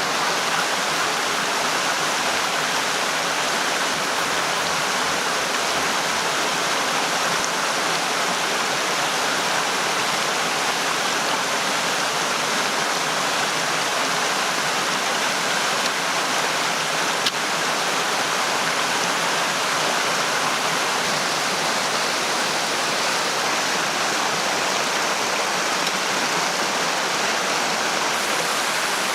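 Steady rushing of flowing water, even and unbroken, with a single faint click about seventeen seconds in.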